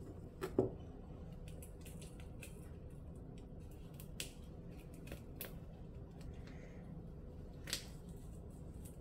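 Light crunching, scraping and tapping as crumbly bath bomb mixture is scooped by hand from a glass bowl and pressed into a small mould on the counter. A short, louder crunch comes about half a second in, and scattered single clicks follow.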